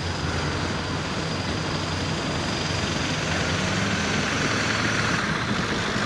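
A 1997 Ford pickup's engine running hard at full throttle under heavy load while dragging a weight-transfer sled, a steady loud drone with a slight rise in pitch partway through.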